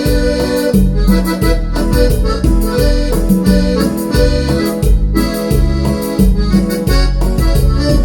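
Yamaha Genos arranger keyboard playing a cumbia norteña accompaniment style, with a steady bass-and-drum rhythm under a sampled norteño accordion voice played over it.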